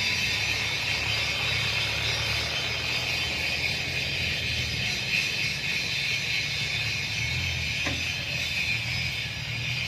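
Heavy diesel machinery running steadily at an excavator loading a dump truck, with a constant high whine over the low engine hum and a single click about eight seconds in.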